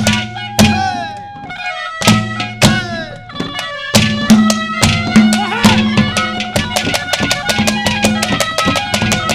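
Instrumental Haryanvi folk ragni accompaniment: held melodic notes over a few separate hand-drum strikes that break into a quick, even drumbeat about four seconds in.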